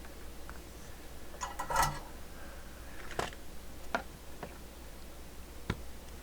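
Scattered small clicks and taps of tools and parts being handled during soldering work on a CB radio, with a quick cluster about two seconds in and then single sharp ticks, over a low steady hum.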